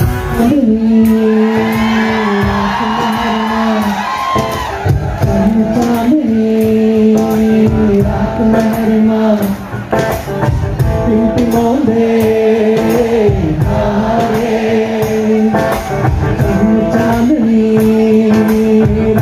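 A man singing live to acoustic guitar, holding long notes that change pitch every second or two.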